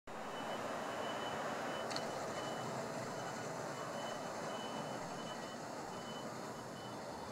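Outdoor railway-station ambience: a steady hum of traffic and surroundings, with a high electronic beep repeating about twice a second over it and a single click about two seconds in.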